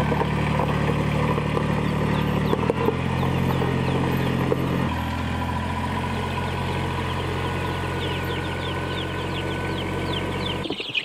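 Kubota compact tractor's diesel engine running steadily as it drives, with chicks peeping in the tub on its loader. The engine sound cuts off near the end.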